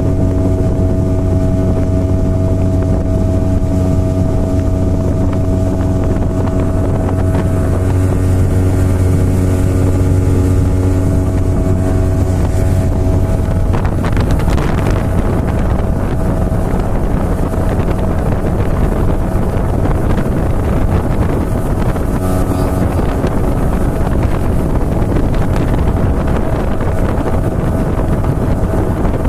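A small engine running steadily at speed, with wind buffeting the microphone. About halfway through its even tone gives way to a rougher, noisier sound.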